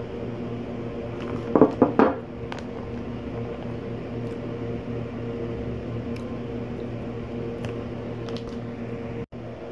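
A quick cluster of three or four clunks as a glass food container is set down on a wooden table, over a steady hum. A few faint crinkles of the plastic snack bag being handled follow.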